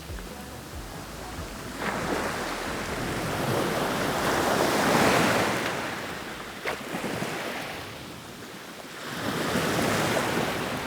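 Sea waves washing in. The surf swells slowly to a peak about five seconds in, falls away, and rises again near the end.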